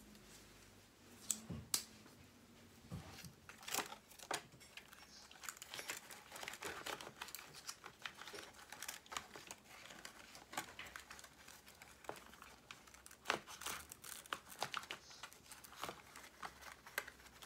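Hands working on a radio-controlled truck chassis, fitting wires, plastic parts and adhesive tape: faint, scattered crinkling and rustling with many small clicks.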